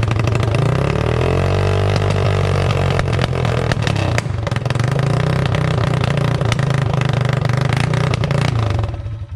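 Yamaha TTR 225's single-cylinder four-stroke engine running on choke with no muffler: a loud, raw exhaust note with crackling pops, a brief rise and fall in revs about a second in. It stops shortly before the end, with the engine struggling to stay running.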